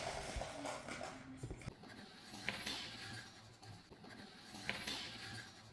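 Faint handling of small plastic Lego Technic pieces, with a light rustle and two soft clicks, about two and a half and nearly five seconds in.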